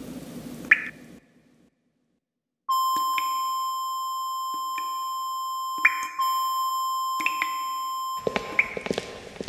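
A steady electronic beep tone, held for about five seconds after a moment of silence, with a series of sharp wooden clicks over it from a hand touching and shifting blocks in a wooden Jenga tower.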